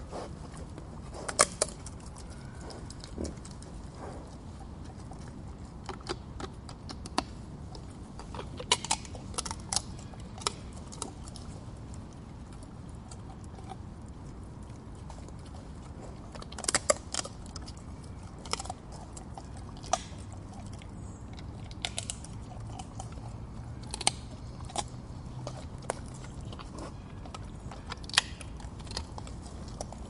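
Wild boar chewing and crunching nuts: irregular sharp cracks, sometimes two or three in quick succession, over a steady low rumble.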